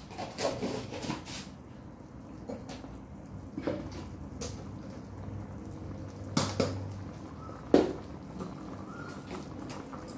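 Pot of chicken and pickled mustard green soup simmering, with a steady bubbling hiss and irregular sharp pops of bursting bubbles, the loudest a few pops about six to eight seconds in.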